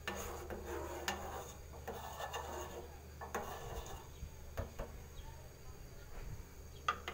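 A steel spoon stirring and scraping around a metal pot of milk tea as it is boiled down, with a few sharp clinks of the spoon against the pot.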